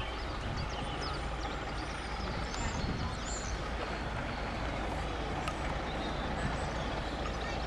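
Steady low rumble of an idling engine, with a few short high bird chirps over it in the first half.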